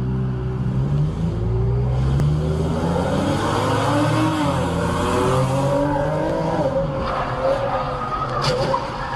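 Car engine revving with tyres squealing in a skid, the pitch wavering up and down, and a sharp knock near the end.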